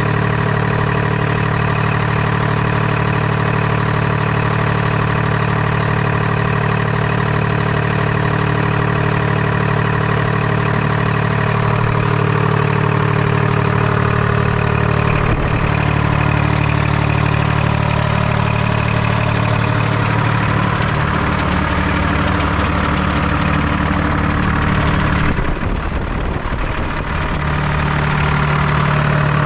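Detroit Diesel 3-53T three-cylinder two-stroke turbocharged diesel idling steadily, warming up after a cold start at about freezing. The idle hunts slightly, which the owner puts down to an unlocked lock nut on the governor buffer screw.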